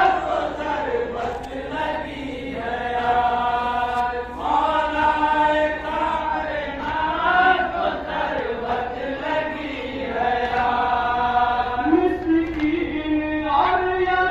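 Men's voices chanting a Shia noha (mourning lament) together, long held lines sung in phrases of a second or two with short breaks between them.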